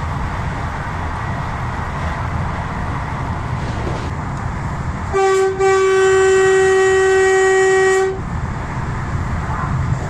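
Vande Bharat Express (Train 18) horn heard from inside the driver's cab: a short toot about five seconds in, then one long blast of about two and a half seconds on a single steady pitch. Under it, the steady running rumble of the train on the track.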